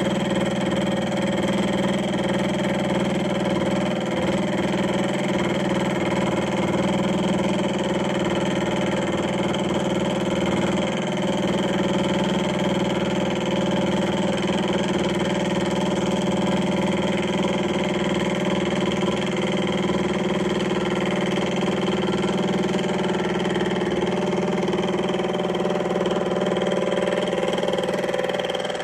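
Milling machine running steadily, its 10 DP gear cutter cutting a tooth in a 13-tooth gear blank: an even machine hum with a strong low drone.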